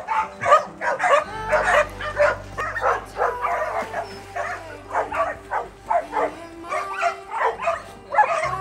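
A pack of dogs barking at once, several short barks a second overlapping, mixed with yips and whines.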